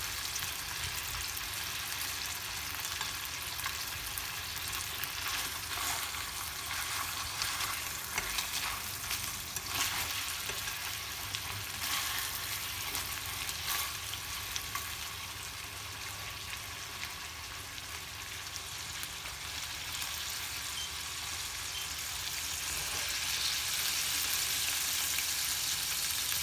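Skin-on chicken pieces sizzling in oil in a stainless steel frying pan. Wooden chopsticks turn them, with a few sharp clicks in the middle of the stretch. The sizzle grows louder near the end.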